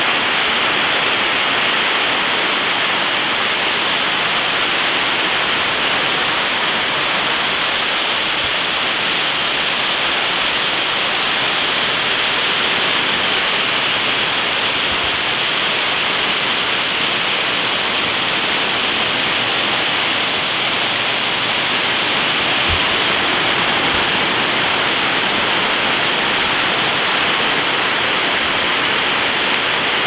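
Waterfall pouring down a rock cliff close by: a steady, even rush of falling water splashing onto the rocks below.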